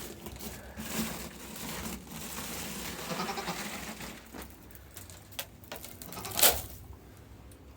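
Goat bleating among rustling, with a sharp knock about six and a half seconds in.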